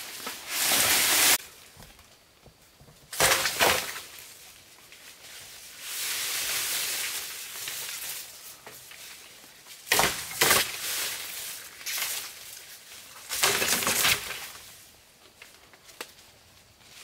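Leafy bamboo poles and undergrowth rustling and crackling as the poles are hauled through the forest, in four short loud bursts with a softer stretch between, fading toward the end.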